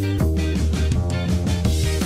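Background music with guitar, bass and a steady drum-kit beat.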